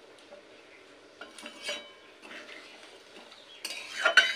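Metal spoon stirring a watery curry in an aluminium kadai, scraping and clinking against the pan: a few soft scrapes at first, then louder clattering strokes near the end.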